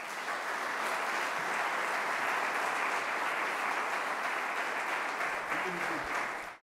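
Audience applauding steadily, a dense even clatter of many hands clapping, which cuts off suddenly near the end.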